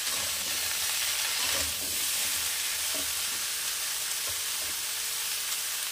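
Diced vegetables sizzling steadily in hot oil in a metal kadai over a high gas flame as they are sautéed, with a few light knocks and scrapes of a metal spoon stirring them.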